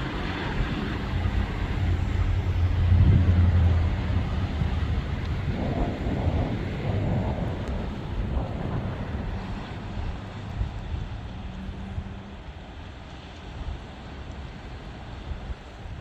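A low engine drone that swells to its loudest about three seconds in and fades out by about twelve seconds, over a steady rushing background noise.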